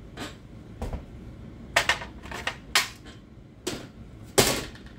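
A series of sharp clicks and taps, about seven of them at irregular intervals, the loudest near the end.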